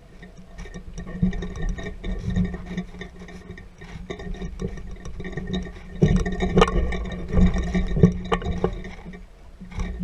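Irregular knocks, taps and rubbing from an action camera being handled and shifted on a boat deck, over a steady low rumble; the knocks grow busier and louder about six seconds in.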